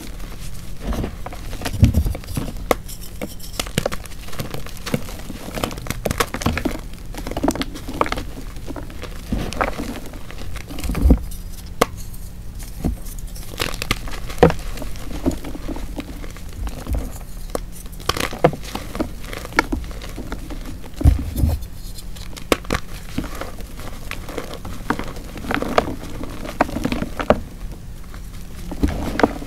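Dried heart-shaped blocks of Chalkness gym chalk, set from chalk and water, being crushed and crumbled: an irregular run of crisp crunches and crackles, with a few louder snaps.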